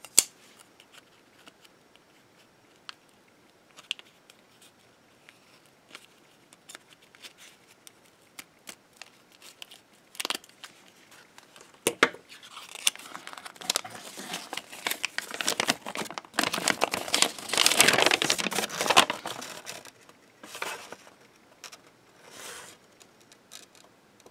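Paper instruction sheet being handled and unfolded: scattered light ticks and taps at first, then crinkling and rustling that grows dense about halfway through, loudest a little past two-thirds of the way, and thins out near the end.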